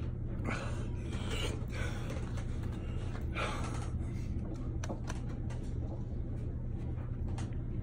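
A man gasping and breathing hard through his mouth, a string of short sharp breaths over a steady low hum, his mouth burning from black Carolina Reaper pepper chocolate.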